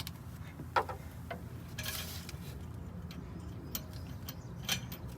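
Scattered light metallic clicks and ticks as a cylinder head is lowered onto the engine on a hoist chain, with one sharper click just before a second in and a short hiss about two seconds in, over a steady low hum.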